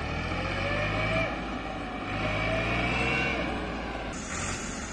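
Farm tractor's diesel engine labouring under load in two surges of revs while hauling a loaded trolley that has got stuck.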